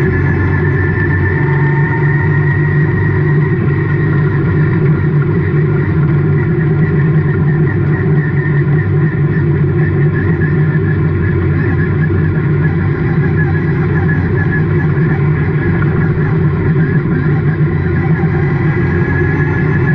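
Stock race car engine running hard at racing speed, heard from inside the car's cockpit, steady and loud, its note rising and falling a little through the corners.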